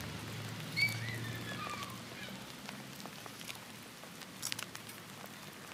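Hand secateurs snipping through old clematis stems at soil level, a few sharp clicks with the loudest about a second in. A short falling chirp comes just after the first snip.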